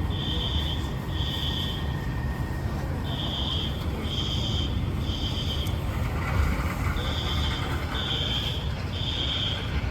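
A building fire alarm sounds in the temporal-three evacuation pattern: three high beeps, a pause, then three more, repeating, over a steady low rumble.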